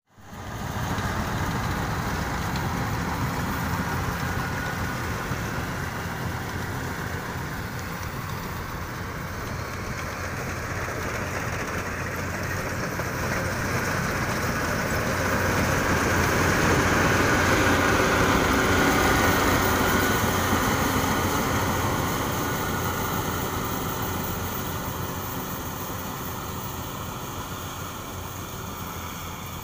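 Yanmar YH850 rice combine harvester running steadily as it harvests, a continuous engine and machinery drone. It grows louder as the combine passes close about halfway through, then fades as it moves away.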